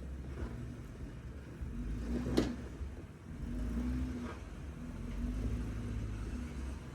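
Off-road 4x4 engine revving in surges under load while climbing a rocky waterfall ledge, with one sharp knock about two and a half seconds in.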